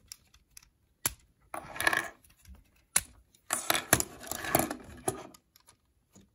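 LEGO plastic parts clicking and rattling as hinge pieces are pried off a brick model, with sharp snaps about a second in and again about three seconds in.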